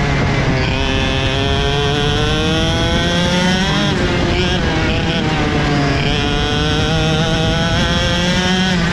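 KZ shifter kart's 125 cc two-stroke engine running hard under race load, heard onboard: the revs climb steadily, drop sharply about four seconds in, climb again, and drop once more near the end.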